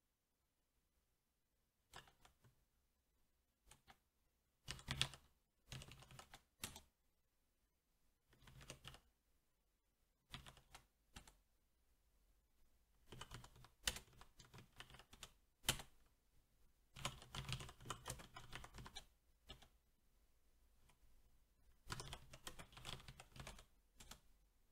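Typing on a SteelSeries 6Gv2 mechanical keyboard with Cherry MX Black switches: short bursts of rapid keystrokes separated by pauses, starting about two seconds in.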